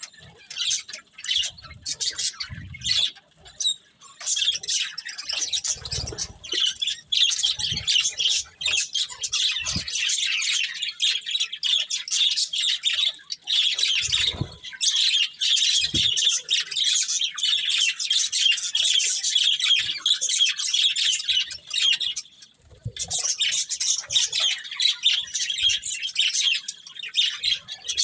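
A pair of budgerigars chattering and chirping continuously in rapid, high warbling calls with the occasional squawk, pausing briefly twice. A few soft low thumps sound in the first half.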